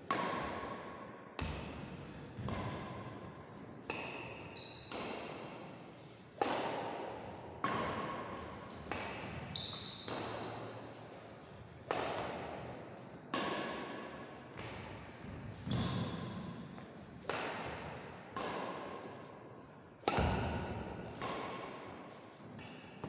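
Badminton rackets striking the shuttlecock back and forth in a long rally, a sharp crack about every second, each echoing in a large hall. Short high squeaks of shoes on the wooden court come between some of the shots.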